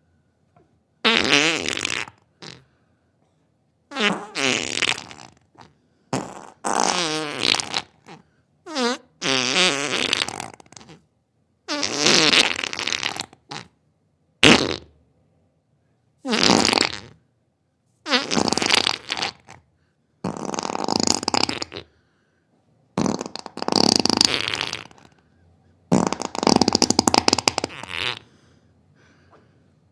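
A series of farts, about a dozen separate ones of one to two seconds each with short silent gaps between them, several with a wavering, buzzy pitch.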